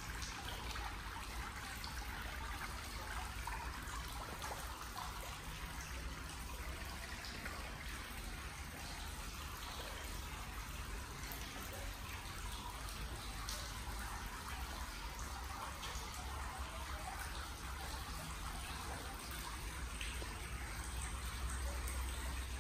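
Steady trickle of running water, an even, unbroken splashing with no pauses.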